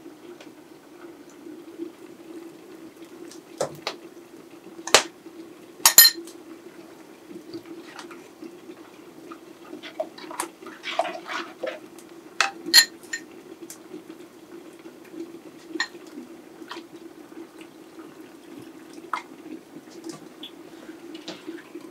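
Kitchen handling sounds at the stove: scattered sharp clinks and knocks of a glass jar, glass bowl and metal saucepan as cream is poured into the pot and seasoning added, with a few louder knocks about five, six and thirteen seconds in, over a steady low hum.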